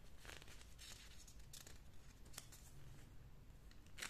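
Faint rustling of paper as pages of a spiral-bound notebook are turned, a few soft brushes with a louder rustle near the end.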